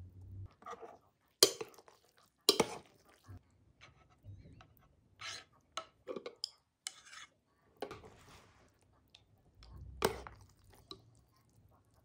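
Chopsticks and a metal spoon clinking and scraping against an enamel bowl while noodles are stirred, and more soup is ladled in from a pan, with a few sharp knocks of utensil on bowl.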